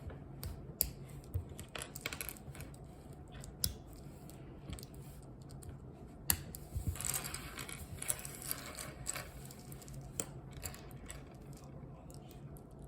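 Small plastic pieces of a mini Rubik's cube clicking and knocking together as it is put back together by hand, with a busier stretch of scraping about seven seconds in.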